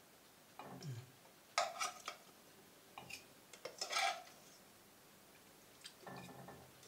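A metal fork scraping and clinking against a pot and a china plate in several short strokes, as pieces of pumpkin-filled pasta are lifted out and laid down.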